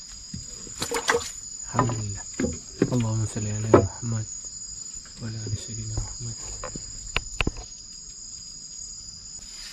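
Night insects chirring steadily in two continuous high tones. A man's low voice murmurs briefly twice, and two sharp knocks come about seven seconds in.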